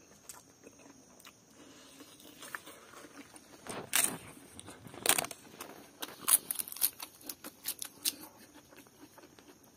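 Close-miked eating: quiet chewing, then crunching bites of a crisp fried papad (poppadom) that set off a string of sharp crackles from about four seconds in.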